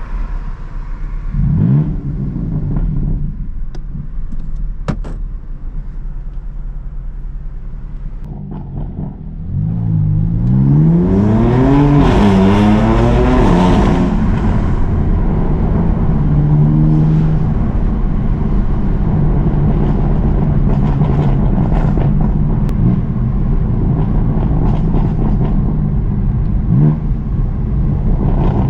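BMW M4 CS twin-turbo straight-six engine driving, with a brief rev about a second and a half in. About ten seconds in it pulls hard, its pitch climbing, dropping at an upshift and climbing again, then it settles into steady running.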